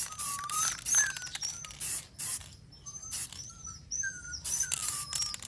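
Aerosol spray can of gloss clear top coat hissing in a series of short bursts, about two a second at times, with repeated short high chirps between the bursts.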